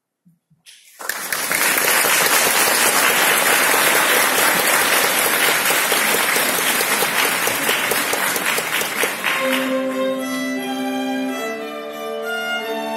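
Audience applause that starts about a second in, after a moment of silence, and lasts about eight seconds. Near the end a violin starts playing a tune.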